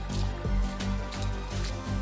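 Background music with a steady low beat.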